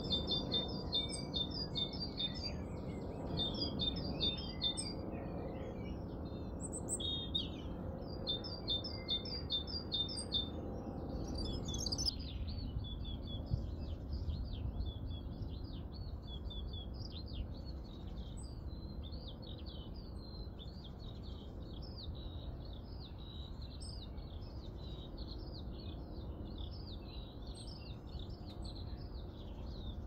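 Garden songbirds singing: rapid series of repeated high notes in short phrases for the first ten seconds or so, then, after an abrupt change about twelve seconds in, a busier mix of overlapping chirps, over a low steady background noise.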